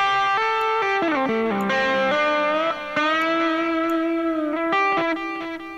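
Electric guitar solo lick playing back through a software compressor. Notes slide down and bend back up into a long held note with vibrato, then quick picked notes near the end.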